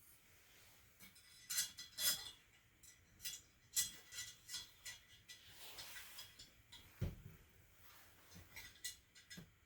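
Light clinks and taps of metal and ceramic tea-ceremony utensils being handled: a string of sharp ticks, some with a brief ring. A duller knock comes about seven seconds in, as something is set down.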